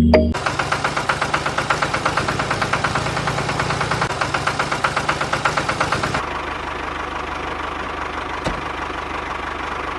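A small machine running with a rapid, even knock at about seven beats a second. Just after six seconds in it changes to a steadier, duller running sound.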